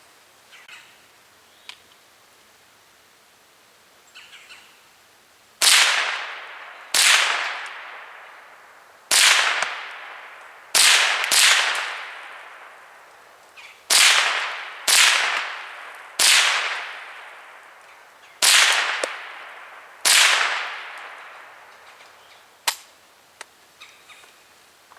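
Ruger 10/22 semi-automatic .22 LR rifle firing ten single shots at an uneven pace, each crack trailing off in a long echo. A short sharp click follows near the end.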